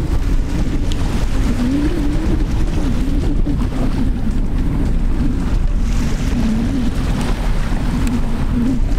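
Wind buffeting the microphone in a steady low rumble, with surf noise and a wavering low moaning tone running underneath.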